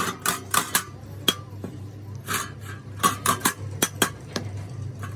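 Metal tools and parts clinking and tapping against each other in irregular light strikes, a few with a short metallic ring, over a steady low hum.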